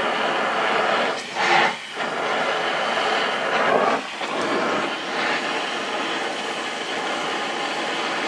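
Gas torch flame hissing steadily while heating a rusted, broken-off bolt, swelling louder briefly about a second and a half in and again near four seconds.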